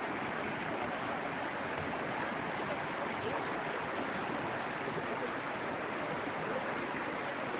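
Steady rush of flowing river water, an even, unbroken sound with no changes.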